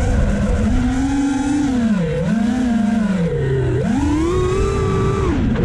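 FPV quadcopter's brushless motors whining, the pitch swooping up and down with the throttle. It dips twice, then rises and holds high for about a second before dropping near the end.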